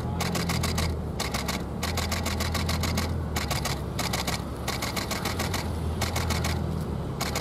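Several camera shutters firing in rapid continuous bursts, many clicks a second, with short pauses between bursts: photographers shooting in burst mode. A steady low hum runs underneath.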